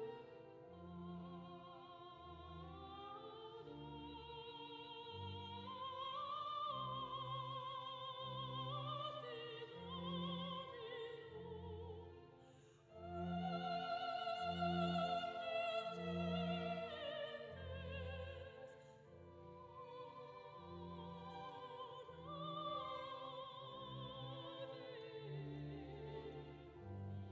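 Slow classical music: a long, held melody with strong vibrato over a line of separate low bass notes, in an operatic style.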